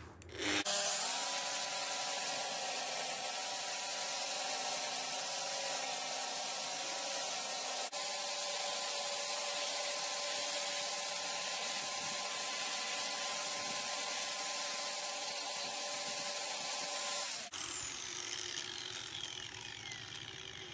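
Bench-mounted angle grinder with a felt polishing wheel switched on and running at full speed with a steady whine and a rubbing hiss as carved antler is buffed on it. Near the end it is switched off and its whine falls away as the wheel spins down.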